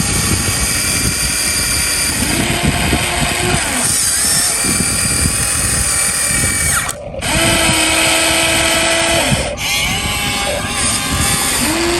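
Electric motors and gearboxes of a Huina radio-controlled model excavator whining as it works, the pitch of the whine changing and steady tones starting and stopping as different motions are run. The sound drops out briefly twice past the middle.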